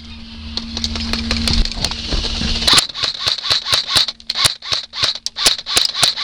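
Airsoft gun shots fired one at a time in quick, irregular succession, a few a second, becoming louder and more frequent about three seconds in. A low steady hum runs underneath during the first few seconds.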